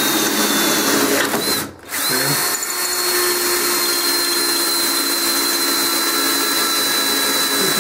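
Electric drill running steadily, boring a hole through thin-walled metal generator frame tubing with a steady high whine. It stops for a moment about a second and a half in, then starts again and keeps running.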